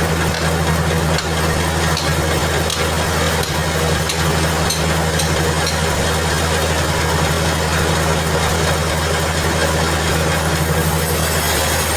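Band sawmill machinery running steadily: a constant low engine-like hum with a steady rushing noise over it.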